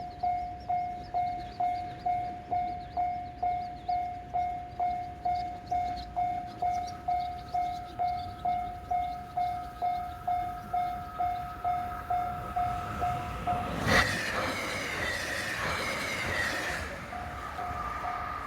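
Japanese railway level-crossing alarm striking its 'kan-kan' tone about twice a second, with a second, higher-pitched crossing bell ringing alongside. About 14 seconds in, a train, the 273-series Yakumo limited express, rushes through the crossing for about three seconds, with rapid wheel clatter and a slowly falling tone over the bells. The alarm then goes on striking.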